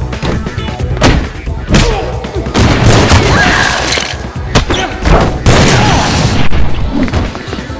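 Dubbed-in fight sound effects: a rapid series of sharp hits and thuds with booming fiery bursts as a vampire goes up in flames, over a music bed.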